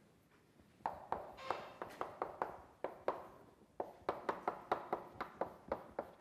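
Chalk writing on a blackboard: a brisk, irregular run of sharp chalk taps, about three or four a second, as letters are written, starting about a second in.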